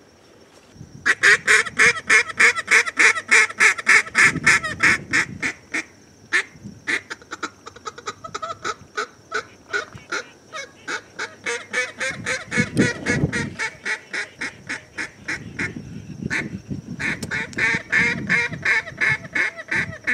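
Fast, even runs of loud quacking duck calls, about five a second. The calling turns softer and quicker through the middle and comes back strong near the end.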